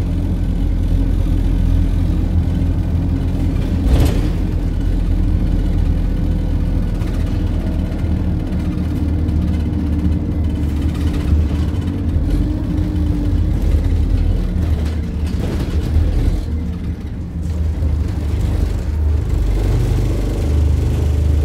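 Dennis Dart single-deck bus's diesel engine running under way, heard inside the passenger cabin as a steady low drone, with one sharp knock about four seconds in.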